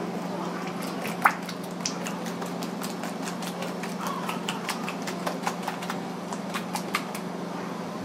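Bare hands slapping and working a wet slurry in a plastic-lined tray: a scatter of sharp wet slaps and clicks, the loudest about a second in, over a steady low hum.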